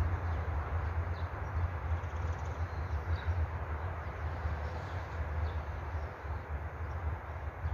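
Wind buffeting the microphone: a steady low rumble that surges and dips, with a soft rush of air over it. A few faint, short high chirps come through now and then.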